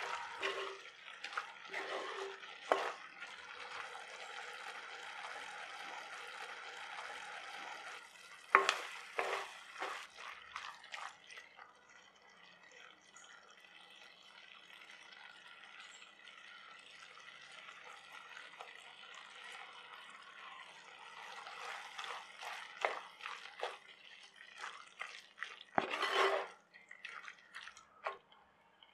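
Squid masala sizzling in a pot, with a spatula stirring and scraping against the pot now and then. The sizzle eases off about halfway through, and the loudest scrapes come about 9 seconds in and near the end.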